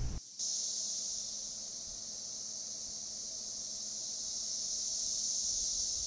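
Chorus of 17-year periodical cicadas (Magicicada cassini) singing together as a steady high-pitched buzzing drone. It starts about half a second in, swells slowly in level and eases off slightly near the end.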